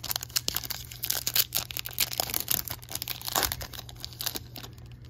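Foil wrapper of a baseball card pack being torn open and crinkled in the hands: a dense run of sharp crackles that thins out near the end.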